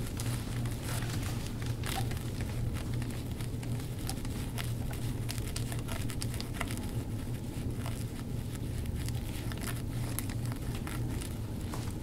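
Gua sha scraping over skin on the back and neck: a steady run of small, irregular crackling clicks over a steady low hum.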